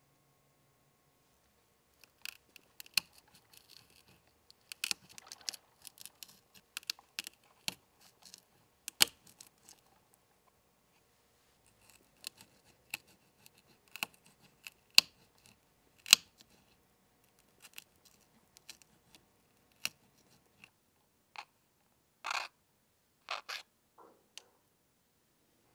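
Tiny kitchen knife chopping green pepper on a small cutting board: irregular sharp taps, busiest in the first half and sparser later. Near the end come a few longer scrapes as the pieces are pushed off the board into a small bowl.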